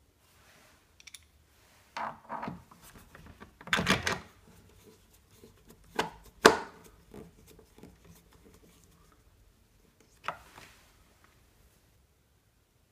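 Hard plastic toy parts knocking and rubbing while a metal bolt is fitted through the plastic front fork, in a series of separate clicks and knocks. The loudest is a sharp knock about halfway through, and a last click comes a little after that.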